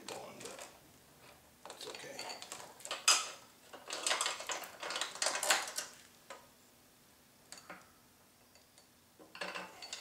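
New steel roller drive chain of a Tru Cut P-20 reel mower clinking and rattling as it is fed by hand over the sprockets. The rattling comes in bursts, with a sharp clank about three seconds in, then stops for a few seconds before more clinks near the end.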